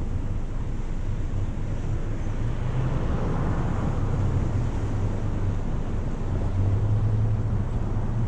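Steady low hum of a car idling at an intersection, with cross traffic driving past; one passing car swells up about three to four seconds in.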